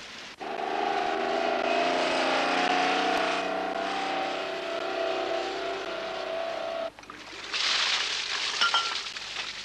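Semi-trailer truck hauling fish-transport tanks on the highway: a steady engine drone with road noise that cuts off abruptly about seven seconds in. Then a loud rushing gush as water pours out of a wide discharge hose from the tank.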